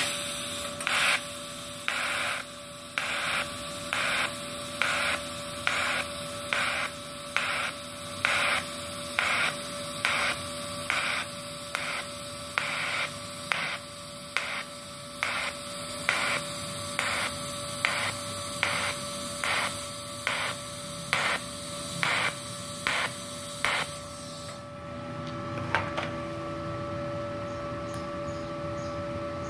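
TIG welding arc from a MultiPro TIG 200A-SA inverter welder set near 128 amps, argon-shielded on stainless steel: a steady hiss with a regular pulsing about twice a second. The arc cuts off about 25 seconds in, leaving a steady hum from the machine.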